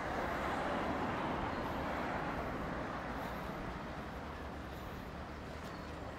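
A road vehicle passing, its tyre and engine noise swelling right at the start and slowly fading away over the next few seconds.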